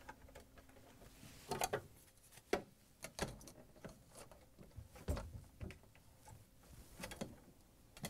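Scattered light clicks and taps from gloved hands handling a refrigerator's plastic control housing and turning the cold control shaft to the off position, a handful of irregular knocks over the stretch.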